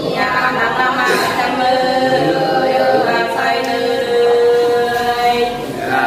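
Unaccompanied sli singing, the Nùng folk love-song style of Lạng Sơn, with long, drawn-out held notes.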